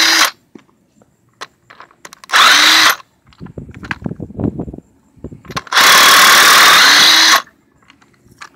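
Handheld power tool with a 19 mm socket spinning wheel lug nuts off. It runs in short bursts, the last and longest about six seconds in, each starting with a rising whine. Metal clicks and rattling come between the bursts.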